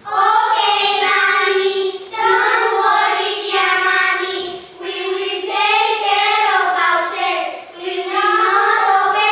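A child singing a melody in four held phrases of about two seconds each, loud and clear.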